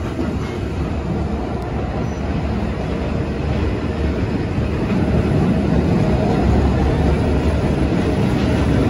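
New York City subway train running along the track through a station, a steady rumble of wheels on rails that grows louder over the first half.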